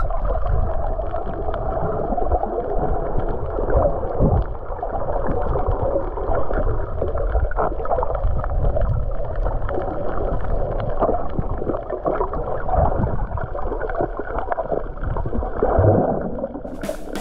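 Muffled underwater water noise picked up by a submerged camera: a low rumble with gurgling and sloshing, and many small scattered crackling clicks.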